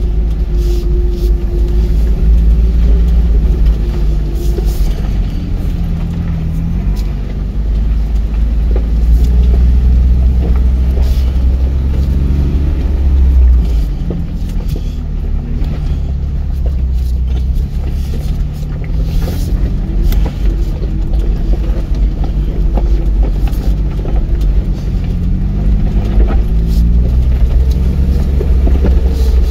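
Ford Bronco's engine running at low speed as it crawls over a rocky dirt trail, its pitch rising and falling slowly with the throttle over a heavy low rumble. Scattered short clicks and knocks come through as the truck rocks over the stones.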